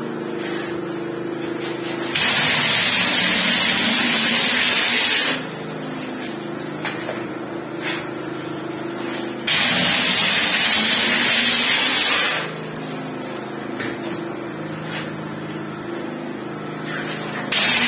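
Compressed-air plaster hopper gun spraying mortar in three loud hissing bursts of about three seconds each: about two seconds in, near the middle, and again at the end. A steady machine hum runs underneath.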